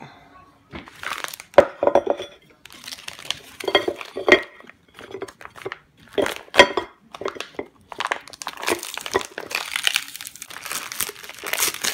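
Clear plastic vacuum packaging around a pork tenderloin crinkling and rustling as it is worked open and pulled off the meat by hand, in irregular bursts with a few sharp clicks or knocks.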